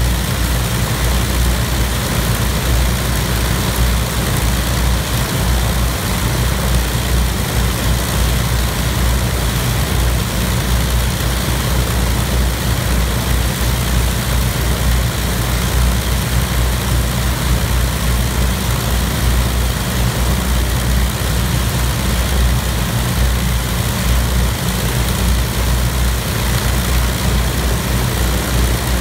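Avro Lancaster's four Rolls-Royce Merlin V12 piston engines running steadily at idle with the aircraft standing still, a deep, even propeller drone.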